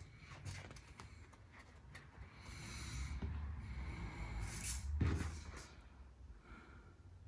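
Sandpaper being handled, pressed and rubbed down onto a tacky spray-glued sanding block: scattered light ticks, a rubbing hiss that swells in the middle, and a light knock about five seconds in.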